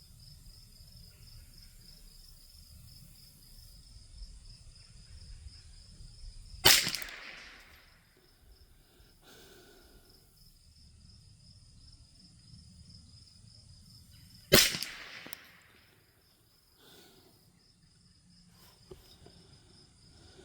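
Two .22 LR rifle shots from a Thompson Center T/CR22 firing SK Standard Plus ammunition, about eight seconds apart, each with a short echo trailing off. Crickets chirp steadily in the background.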